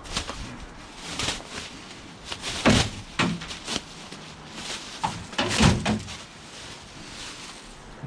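Scrap metal being handled and loaded: a run of knocks, clanks and thuds, the two loudest about a third of the way in and past the middle.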